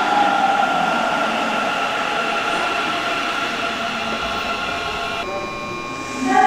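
Sapporo subway 8000 series rubber-tyred train braking into the platform, its IGBT-VVVF inverter sounding several steady electric tones over the rolling noise. About five seconds in, the rolling noise drops away as the train comes to a stop, leaving a few steady tones.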